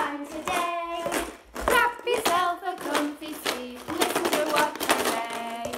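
A woman and a boy singing together, keeping time with sharp rattles and taps from a homemade plastic-bottle shaker and a kitchen-roll tube drum.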